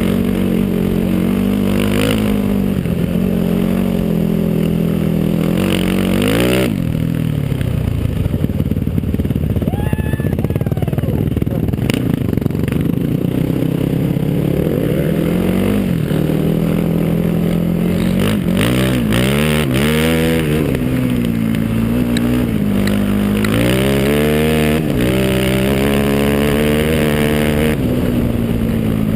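Single-cylinder sport ATV engine running hard, its pitch rising and falling again and again as the throttle opens and closes and it shifts gears. There are quick repeated climbs in pitch and a rougher stretch off the throttle.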